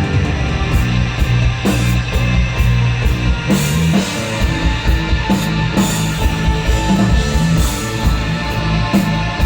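Live instrumental desert rock band playing, with electric guitar, bass and a drum kit. The bass holds long low notes under steady drum hits.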